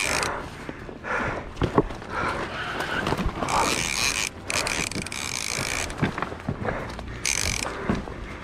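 Fishing reel drag buzzing in several short bursts as a hooked sturgeon pulls line off the reel, with scattered knocks between the bursts.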